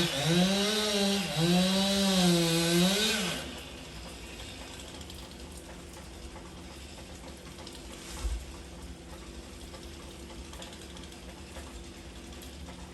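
Chainsaw revving hard and cutting, its pitch dipping and rising under load, then dropping to a quiet steady idle about three and a half seconds in. A single low thud comes about eight seconds in.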